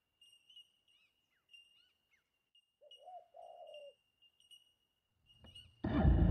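Faint birds calling: a few quick falling chirps, then two short lower calls about three seconds in, over a thin steady high whine. Near the end a loud, full sound cuts in suddenly.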